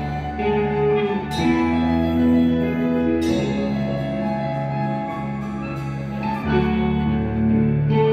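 Rock band playing live in a TV studio: slow, held chords on guitar and keyboard that change every second or two, with cymbal crashes at some chord changes, about a second in, around three seconds in, and near the end.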